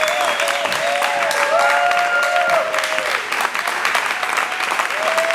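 Theatre audience applauding steadily, many hands clapping at once, with a few long, held calls from the crowd over the clapping.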